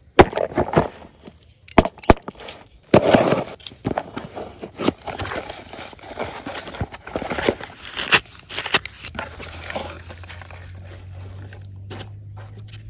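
Cardboard box handled and torn open by hand: sharp taps and knocks, cardboard flaps ripping and paper wrapping rustling. From about nine seconds in a low steady hum sits underneath.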